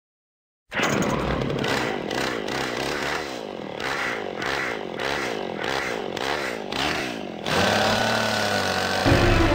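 Chainsaw revving in rapid repeated surges of pitch, starting abruptly a little under a second in. About two seconds before the end it gives way to a steady droning sound.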